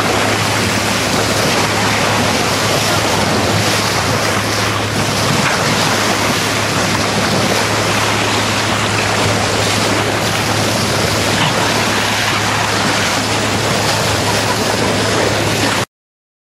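Water rushing and splashing along a moving boat's bow in its bow wave, with wind buffeting the microphone and a steady low hum underneath. The sound cuts off suddenly near the end.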